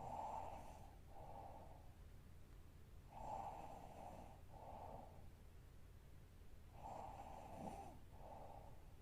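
A sleeping young woman breathing heavily through the night, faint: three slow breaths about three and a half seconds apart, each a longer rush followed by a shorter one.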